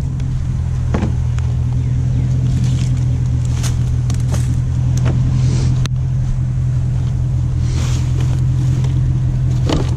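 Truck engine running steadily, a constant low hum, with scattered light clicks and knocks over it.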